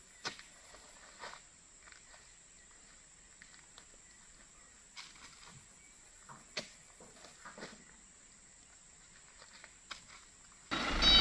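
Scattered dull knocks of oil palm fruit bunches being heaved up with a hooked metal pole and dropped into a dump truck's steel bed. Near the end, a truck engine and a repeating reversing beeper cut in loudly.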